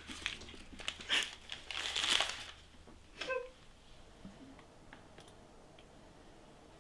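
Paper tissues rustling and crumpling in hands for about two and a half seconds, then a short, falling crying sob about three seconds in.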